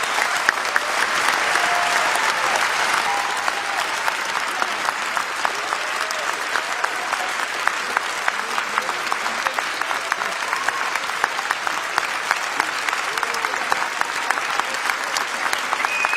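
Large crowd applauding steadily, a dense clatter of many hands, with scattered cheers and shouts rising out of it now and then.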